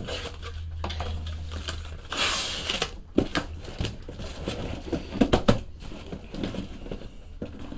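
A cardboard shipping case being opened by hand: a brief scraping, tearing rush about two seconds in as the flaps are pulled apart, then scattered knocks and rustles of cardboard.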